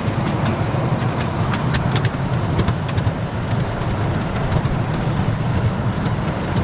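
Ride-on miniature railway train running along its track: a steady low rumble of wheels on rail, with scattered sharp clicks.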